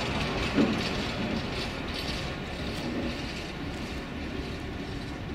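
Freight train's flat wagons rolling past, the wheels' rumble on the rails slowly fading as the end of the train goes by. There is a brief louder sound about half a second in.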